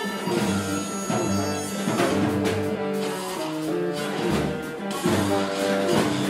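A small live band playing together: saxophone, violin, double bass and drum kit, with sharp drum hits about two and five seconds in.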